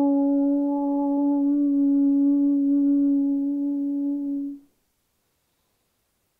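A woman chanting a long "Om" on one steady pitch, the lips closed on a hummed "mm"; the note stops about four and a half seconds in.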